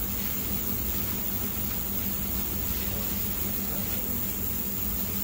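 Steady, even hiss like a fan or blower, with a low constant hum underneath.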